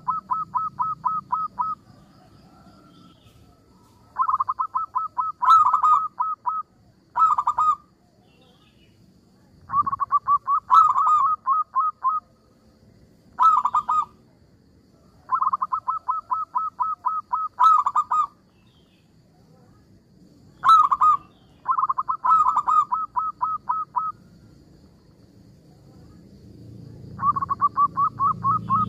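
Zebra dove (perkutut) singing: repeated bouts of rapid staccato coos, about ten notes a second. Each bout lasts a second or two, some only a short burst, with pauses of one to three seconds between them.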